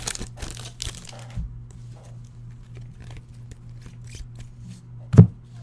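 Trading-card packs and cards being handled: the plastic wrapper crinkles and the cards click against each other, busiest in the first second and a half, then a single sharp knock about five seconds in. A steady low hum runs underneath.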